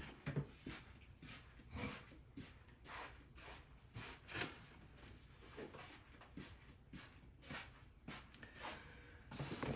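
A person moving about a small room: faint knocks and rustles, about two a second.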